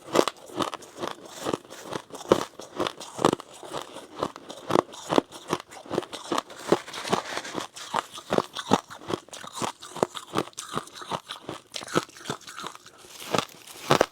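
Close-miked chewing of freezer frost: a steady run of crisp crunches, about two to three a second.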